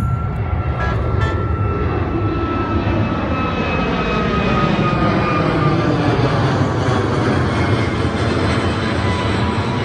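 Airliner passing close by, a steady loud engine rush with a faint whine that slowly falls in pitch as it goes past.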